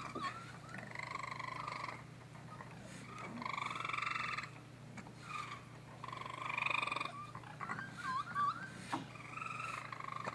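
Baby raccoons crying: a run of about five buzzy, wavering calls, each about a second long. Short warbling whistles come about eight seconds in.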